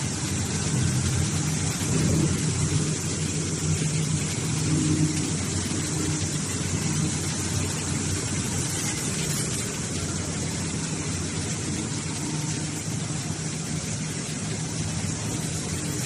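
Hydraulic baler running: a steady low machine hum from its motor and hydraulic pump, a little louder in the first five seconds.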